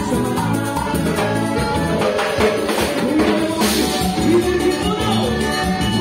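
Live cumbia ranchera band playing over a PA: steady bass and percussion with a keyboard line, and a man singing into the microphone from about two seconds in.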